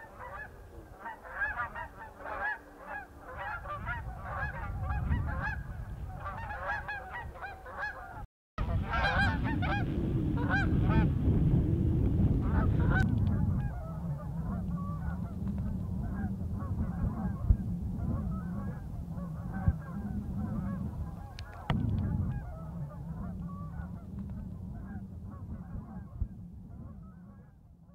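A large flock of geese flying overhead, many birds honking over one another in a constant chorus of short calls. A low rumble of wind runs underneath, and the honking fades out near the end.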